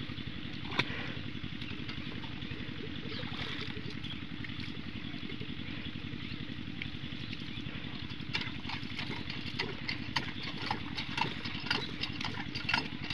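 Small diesel engine running steadily at idle with an even, rapid chugging beat while its water pump is being primed. From about eight seconds in, sharp clicks and clatter sound over the engine.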